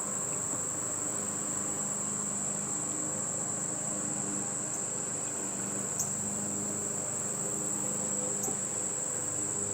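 Honeybees buzzing around an opened hive, a steady wavering hum, with a constant thin high-pitched whine above it.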